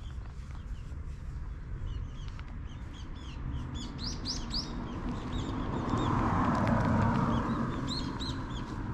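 Small birds chirping over and over, short quick calls, loudest about four seconds in. A rushing noise swells and fades about six to seven seconds in.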